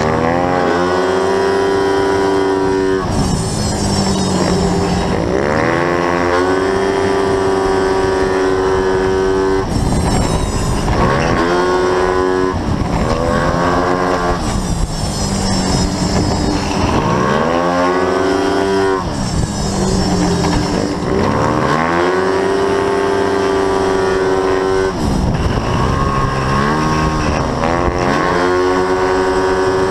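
Onboard sound of a 125/180cc racing scooter's engine at full race pace: the revs climb quickly out of each corner, hold a steady high pitch along the straight as the automatic belt transmission keeps the engine at constant revs, then drop away under braking, over and over. A rushing noise runs under it.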